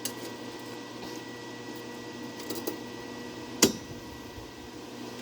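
A steady mechanical hum with several fixed tones, broken by a few light clicks and one sharp click about three and a half seconds in.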